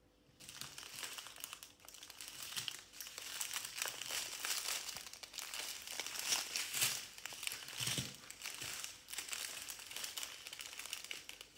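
Thin plastic crinkling and rustling irregularly as strips of small sealed bags of diamond-painting drills are handled and laid out.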